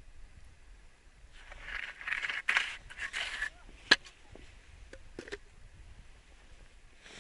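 A small winter ice-fishing rod being handled at an ice hole: rustling and scraping for about two seconds, then a single sharp click about four seconds in, followed by a few soft knocks.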